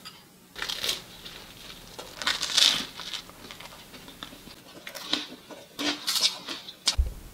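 Toasted baguette crunching in several short, crisp crackles, the loudest about two and a half seconds in.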